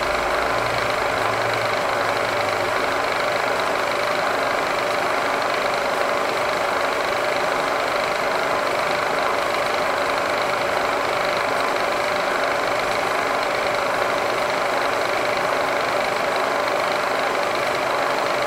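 Milling machine spindle running a 3/8-inch two-flute end mill, a steady whine with no cutting yet: the cutter is being crept down toward the work surface to touch off and set Z zero.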